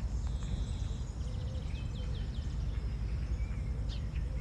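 Outdoor ambience: small birds chirping, with a quick run of four chirps about two seconds in, over a steady low rumble.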